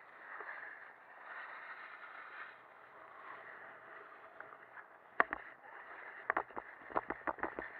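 Skis sliding down a hard-packed ski slope with a steady hiss of snow and wind on the camera. About five seconds in come sharp clacks and knocks, in a quick, irregular run for the last couple of seconds.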